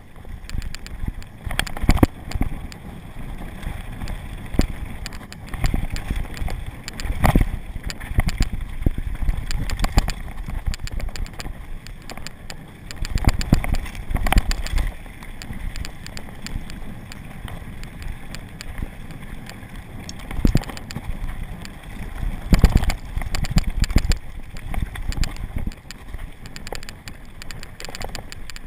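Mountain bike descending a dirt trail at speed, heard from a camera on the rider: a steady rumble of tyres on dirt with frequent rattles and knocks from the bike over bumps.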